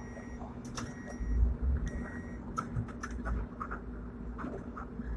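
Hong Kong double-deck electric tram running, heard on board: a steady low rumble and hum with scattered clicks and knocks from the car. Short high tones sound three times in the first two and a half seconds.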